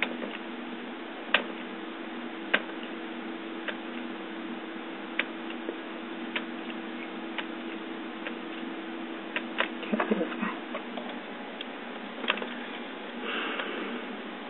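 Computer mouse clicking as MRI image slices are stepped through: single sharp clicks at irregular intervals of roughly a second, with a quick run of clicks about ten seconds in, over a steady low electrical hum.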